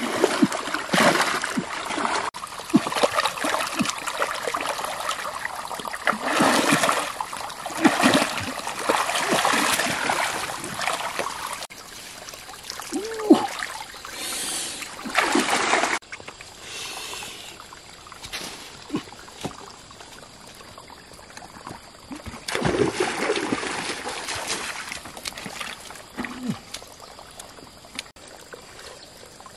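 Shallow stream water splashing and churning as hands beat through it, then water pouring and dripping out of a lifted scoop net, with a later stretch of splashing. A short vocal sound about 13 seconds in is the loudest moment, and a brief one follows near 26 seconds.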